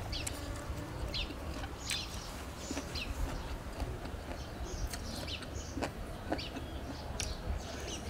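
Small birds chirping in short, scattered calls, with chickens clucking; a few sharp clicks in the second half.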